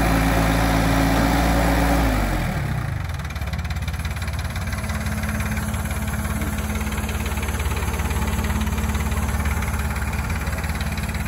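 Morooka MS-25 crawler loader's Isuzu diesel engine running at raised revs, then throttled back about two seconds in, its pitch falling to a steady, slightly quieter idle.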